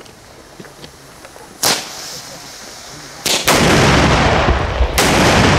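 Homemade flash-powder ground salutes exploding: a sharp bang about 1.7 seconds in, then another about 3.3 seconds in that turns into a loud, sustained deep rumble, with a further sharp bang near 5 seconds in.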